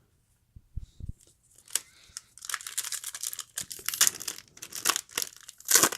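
A trading card pack's wrapper being torn open and crinkled, a run of crackly tearing and rustling. It is preceded by a couple of soft knocks about a second in.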